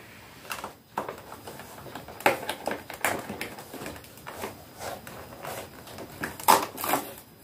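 Handling noises from a cardboard advent calendar box being worked open: scattered short clicks and rustles of cardboard and plastic, with a louder pair of clicks near the end.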